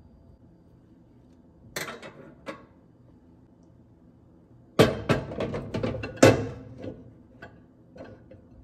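Glass microwave turntable plate being set into a new microwave, clinking and clattering against the roller ring and cavity floor, with the loudest clatters about five to six seconds in and lighter taps near the end. Soft background music plays underneath.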